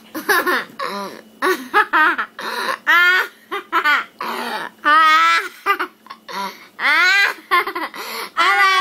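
A child laughing hard and loudly in repeated high-pitched bursts, as a deliberate, performed laugh.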